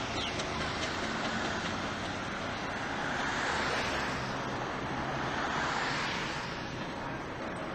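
Cars passing on the road: tyre and road noise that swells twice as they go by.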